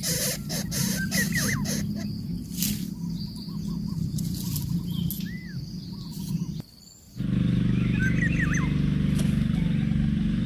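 Short, high bird chirps over a steady low hum, with a run of quick rhythmic clicks or rustles in the first two seconds. The sound drops out briefly about two-thirds of the way through and comes back with a louder, steadier hum.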